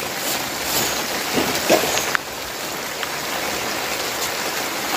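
Steady rain falling, an even hiss of raindrops on the surroundings, with a few faint taps about two seconds in.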